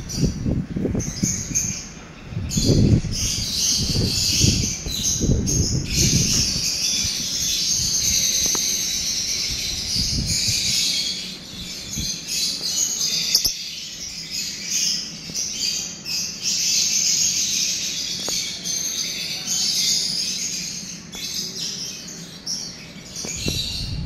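Caged lovebird chirping in a high, nearly unbroken stream of twittering, with low rumbling bumps during the first six seconds.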